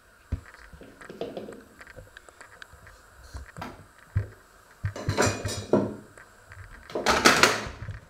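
Scattered light knocks and clatter of handling, with two longer scraping, rustling noises about five and seven seconds in, the second the loudest.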